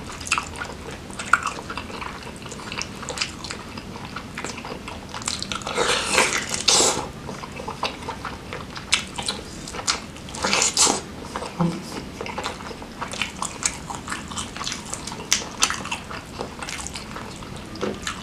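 Close-miked eating of grilled chicken dipped in chili sambal: biting into the meat and chewing with many small wet clicks, with two louder bites about six and eleven seconds in.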